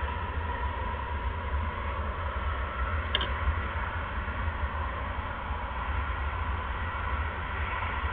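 Steady low hum with an even hiss over it, and one faint short click about three seconds in.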